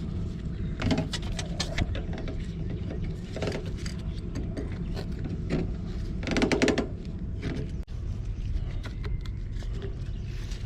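Metal clinks and clatter from handling galvanized gas pipe and fittings, in a few short clusters over a steady low rumble.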